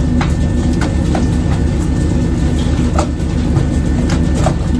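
Fishing boat's engine running with a steady low drone. Irregular sharp knocks sound over it, about eight in under five seconds, as skipjack tuna are flicked aboard and hit the deck.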